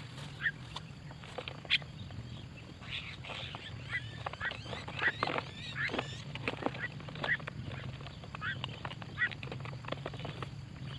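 Birds giving short, harsh chirps and squawks at irregular moments, mixed with scattered clicks, over a steady low hum.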